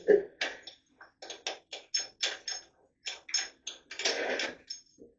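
An irregular series of short, sharp metallic clicks and clinks from hand tools and engine parts being worked during a small-block Chevy 350 teardown, with a brief rattle about four seconds in.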